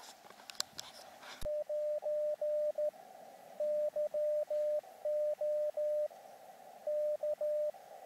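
Elecraft KX2 transceiver's CW sidetone: a single steady tone keyed on and off in Morse code, sending the stored CQ call from its message memory. A narrow hiss of receiver band noise fills the gaps between the characters. The keying starts about a second and a half in and stops shortly before the end.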